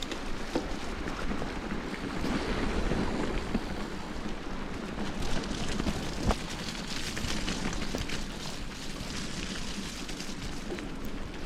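Bicycle riding along a forest trail: a steady rush of tyre and wind noise on the action camera's microphone, with scattered small clicks and rattles from the bike.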